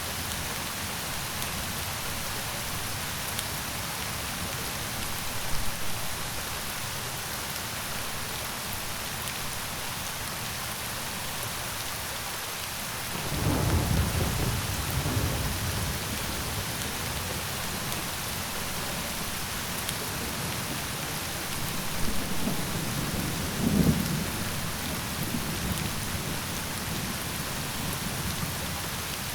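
Steady rain, with a low roll of thunder rumbling up about halfway through and another, the loudest, a little later.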